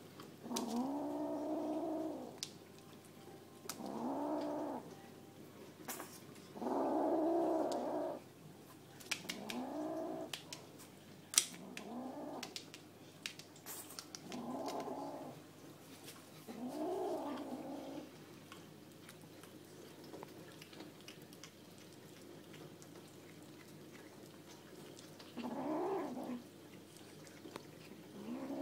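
Nine-week-old kitten growling to guard a chunk of chicken: about eight drawn-out growling yowls, each about a second long, rising and then falling in pitch, with a long pause in the last third. A brief sharp click comes about eleven seconds in.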